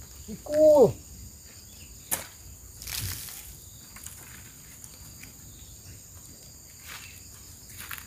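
Steady high drone of insects in the background. About half a second in comes a short vocal call that falls quickly in pitch, and later there is a sharp click followed by a duller knock.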